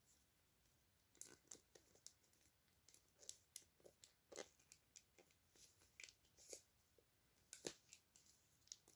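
Faint, irregular clicks and scrapes of small plastic toy parts being handled and pressed together by hand, a piece that will not snap into place. The loudest clicks come near the end.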